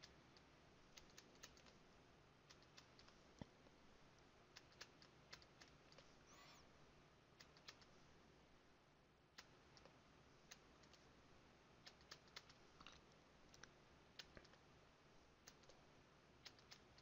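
Faint, irregular clicks and taps of a pen stylus on a writing tablet as numbers are handwritten, about one or two a second.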